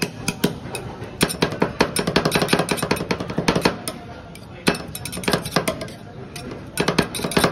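Two metal spatulas chopping and scraping ice cream and dried-fruit toppings on a frosted cold plate, making rolled ice cream: quick runs of sharp metal taps with short pauses between.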